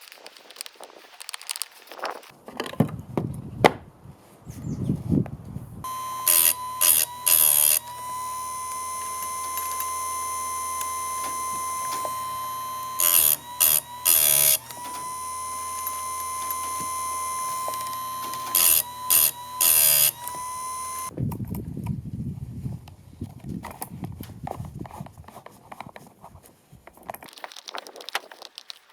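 An electronic alarm-like sound: a steady high tone broken by groups of three loud beeps, repeating about every six seconds, starting and stopping abruptly. Before and after it come irregular rustling and knocking handling noises.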